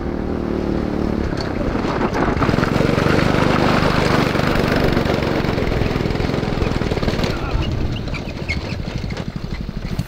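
The go-kart's 5 hp Honda overhead-cam single-cylinder engine runs hard under load as the kart drives by. It grows louder to a peak a few seconds in, then eases off toward the end.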